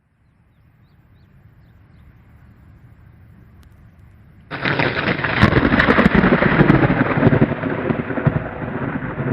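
Thunder: a faint low rumble building, then a sudden loud crack about four and a half seconds in that rolls on as a heavy rumble.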